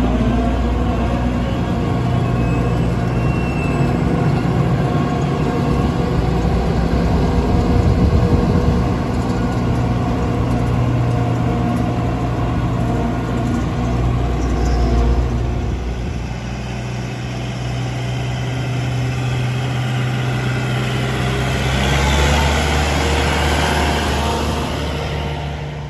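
Diesel engine of a Claas Tucano 440 combine harvester running steadily as the machine drives off. Near the end a tractor towing the header trolley passes close, adding a louder rumble and hiss.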